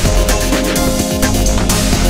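Up-tempo electronic trance music with a steady beat and heavy bass.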